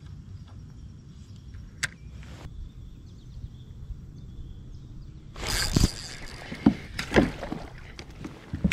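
Steady low wind rumble on the microphone with a single sharp click about two seconds in, then splashing and rattling from about five and a half seconds as a small perch is hooked and swung out of the water into the kayak.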